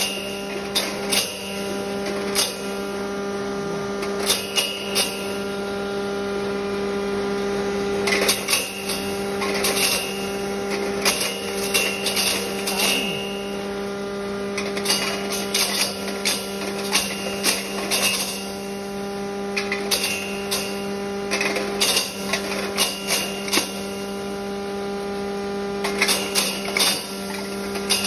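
Mini turmeric grinder's electric motor running with a steady hum, overlaid by irregular bursts of clattering and rattling as dried turmeric pieces are fed in and broken up in the grinding chamber.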